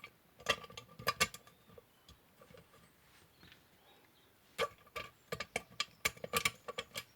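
Small metal parts and a tool clicking and clinking in two irregular clusters, some clicks ringing briefly, as the chainsaw muffler's outlet cover is screwed down.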